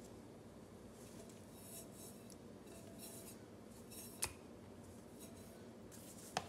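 Faint scraping and clinking of utensils and a container against a stainless steel pot as liquid is poured into melted soap-making oils, with two sharp clinks, about four seconds in and near the end.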